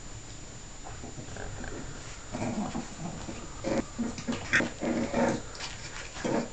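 Staffordshire bull terrier puppies play-fighting, giving a string of short growls and yips that start about two seconds in.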